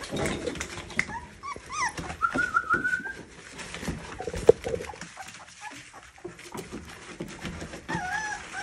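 Two-week-old American Bully puppies whimpering in short, high-pitched whines that bend in pitch, several in the first three seconds and again near the end, over the scratchy rustle of wood shavings as they crawl.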